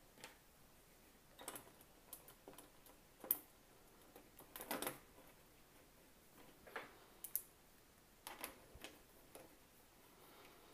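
Faint, irregular clicks and taps of small hardware being handled: hinge bolts being hand-threaded into a 3D printer's frame to hang an acrylic door, with a sharper click about three seconds in.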